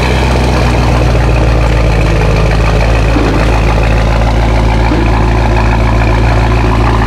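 BMW M5 F10's twin-turbo V8 idling steadily through an Akrapovic exhaust, with a deep, even rumble and no revs.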